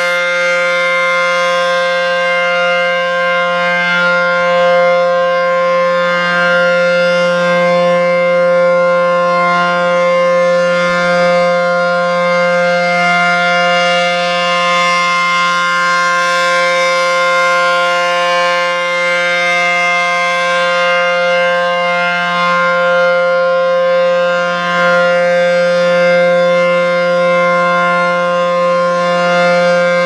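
ACA P-10 rotating electromechanical siren sounding its steady alert signal for an annual test: a continuous loud wail held on one pitch, its loudness swelling gently every few seconds as the rotating head sweeps around.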